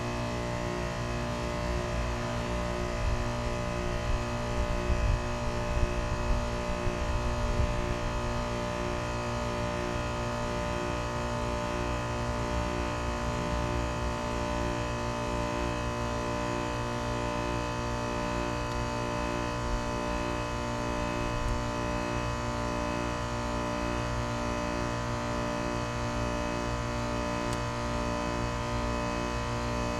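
Carrier Sentry heat pump outdoor unit running in a defrost cycle: a steady machine hum made of many constant tones, with a regular pulsing underneath. An uneven low rumble rises between about three and eight seconds in.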